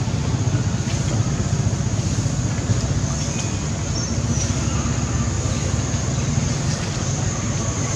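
Steady low rumble with a hiss above it; no distinct calls or knocks stand out.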